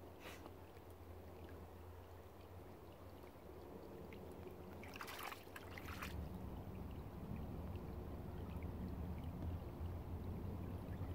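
A dog splashing in a shallow muddy puddle, with a few brief splashes from its front paw about five seconds in, over a low steady rumble.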